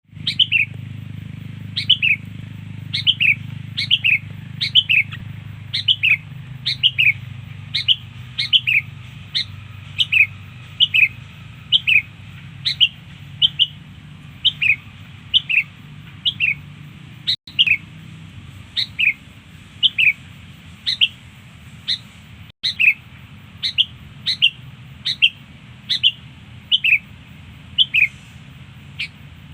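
Sooty-headed bulbul (kutilang) calling: short, sharp down-slurred chirps, often in pairs, repeated about once or twice a second without a break.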